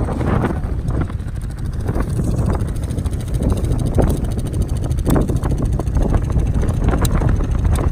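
ATV engine running under load while riding through snow, with wind buffeting the microphone.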